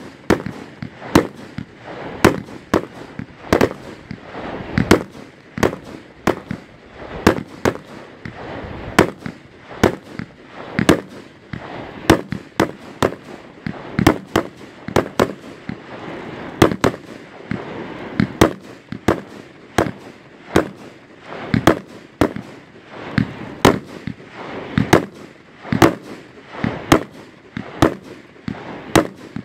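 Aerial fireworks bursting in quick succession, a sharp bang about once a second, with the hiss and crackle of rising shells and burning stars between.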